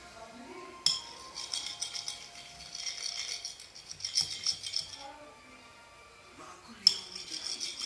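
Stirring utensil clattering against a container while mixing colorant into clear slime glue: a sharp knock, then several seconds of fast rattling strokes, a pause, then another knock and clattering near the end.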